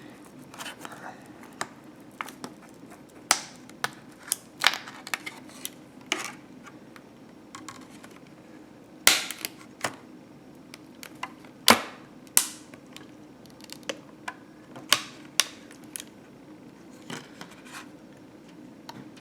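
Irregular sharp clicks and taps as a laptop RAM stick is handled and fitted into its slot, with a few louder snaps around the middle, over a faint steady hum.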